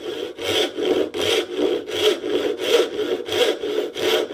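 Backsaw cutting a kerf across the end of a wooden hammer-handle tenon, making the notch for a wedge. The strokes are quick and even, about three a second.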